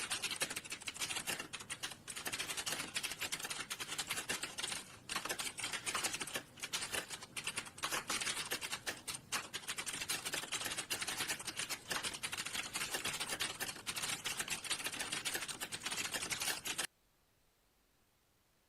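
Fast typing on a computer keyboard: a dense run of key clicks with a few short pauses. It stops abruptly near the end, leaving near silence.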